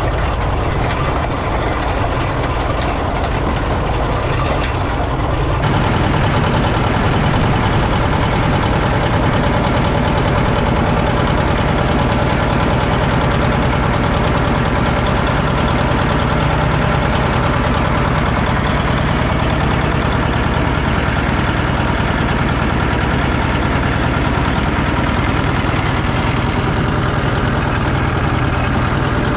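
John Deere 730 Diesel's two-cylinder diesel engine running steadily under load, pulling a culti-mulcher through tilled ground. For the first few seconds it is heard from back on the implement. From about six seconds in it is close up and louder.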